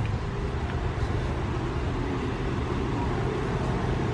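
Steady low rumble of idling bus engines and traffic at a bus loop.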